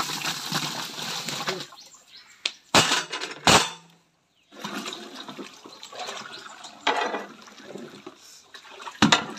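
Drained rice poured from a perforated aluminium colander into a large pot of boiling biryani gravy, splashing and sizzling; two loud metal knocks a little after two and a half seconds in. Then the pot is stirred with a long paddle, with a further knock about seven seconds in and another near the end.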